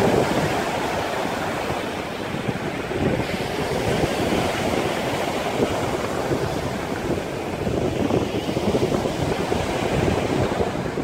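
Wind buffeting the microphone over the steady rush of sea water and waves, cutting off suddenly at the end.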